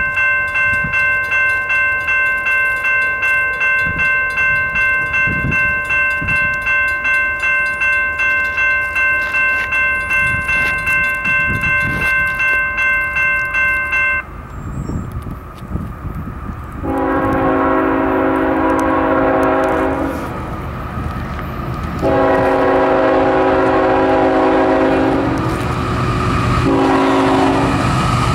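Electronic grade-crossing bell ringing at about three strokes a second, which stops about halfway. Then the CSX diesel locomotive's air horn sounds several long blasts for the crossing over the rumble of the approaching train.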